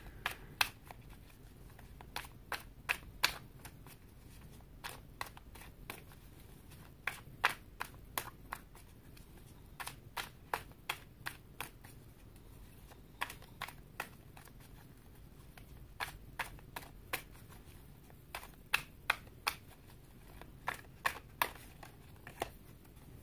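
Tarot deck being shuffled by hand: a long run of sharp, irregular card taps and slaps, often in small clusters.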